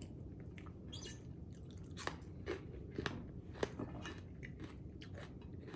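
A person chewing and biting food close to the microphone: a scattering of short, soft crunches and mouth clicks.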